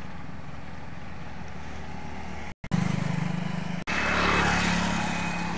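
Road traffic: a motor vehicle engine running steadily, growing louder and busier from about four seconds in as a vehicle draws near. The sound cuts out briefly about two and a half seconds in.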